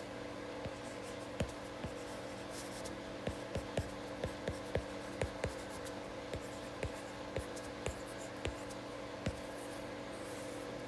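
Stylus tip tapping and sliding on a tablet's glass screen during handwriting: a string of irregular short clicks over a faint steady hum.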